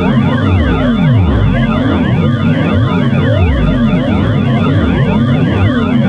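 Electronic 'alien' night-watchman siren effect: many layered wailing tones sweeping up and down over each other a few times a second, forming a dense, loud, unbroken warble.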